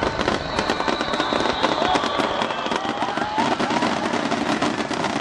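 Fireworks display: a dense, rapid barrage of crackling pops and bangs from many shells bursting at once, with no pause.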